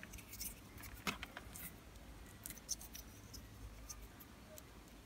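Faint, scattered clicks and ticks of small plastic parts: a lever-type push-in wire connector is handled in the fingers while a stripped wire is fitted into it. The sharpest click comes about a second in.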